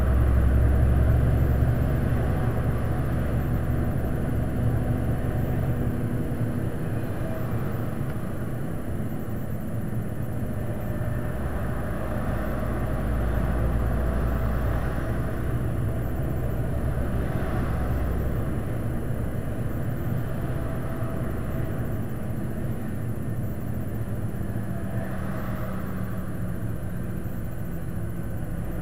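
Steady low rumble of a vehicle's engine and tyres heard inside the cab while driving on a motorway, with a faint steady hum under it. It is a little louder in the first couple of seconds, then eases slightly.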